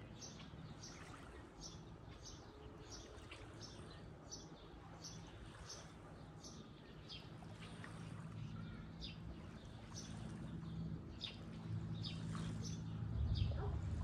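A bird repeating short, high chirps roughly every two-thirds of a second, over a low steady hum that grows louder and swells near the end.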